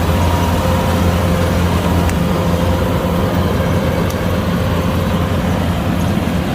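Kubota DC-105X combine harvester's diesel engine running steadily, a constant low hum with a steady whine above it.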